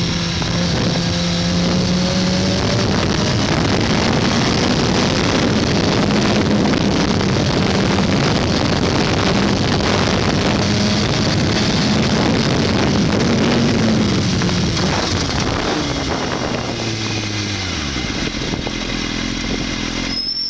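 Kawasaki sport bike engine heard from onboard, running steadily under way with wind rush, then dropping in pitch as the bike slows about three quarters in, and running low and steady near the end as it rolls almost to a stop.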